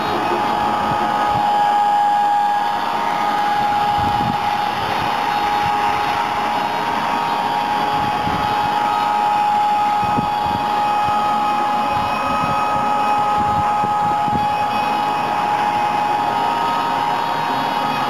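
Electric band sawmill (AVG LP-60, 11 kW electric drive) running with its band blade sawing lengthwise through a log: a steady, even whine over a constant hiss.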